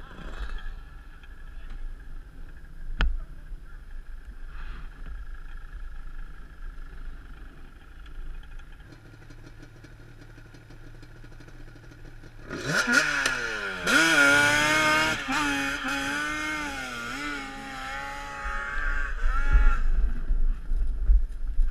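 Sport quad engine running low and steady, then revving hard about twelve seconds in, its pitch sweeping up and then rising and dipping for about seven seconds. Wind buffets the microphone near the end.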